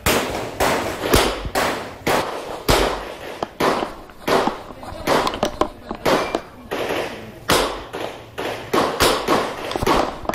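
Revolver shots fired in a long, fast string, about two a second, each a sharp crack with a short echo.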